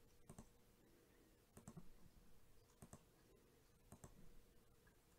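Four faint computer mouse clicks, about a second apart, as checkboxes are ticked one by one.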